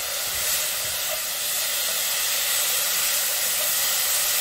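Chopped onions, celery, carrots and leek sizzling steadily in hot butter in a Dutch oven as they are stirred and sweated.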